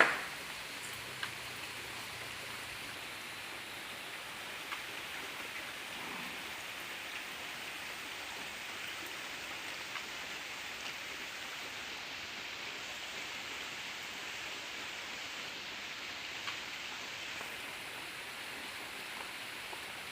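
Steady rain falling, an even hiss with a few faint drips and ticks. A brief sharp knock at the very start is the loudest moment.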